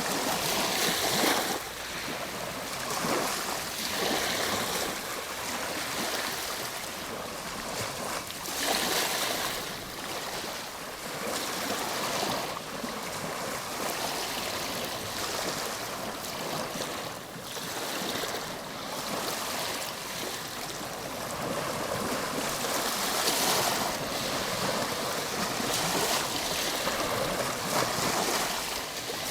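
Ocean waves breaking and washing on a shore: a continuous hiss of surf that swells and falls back every few seconds.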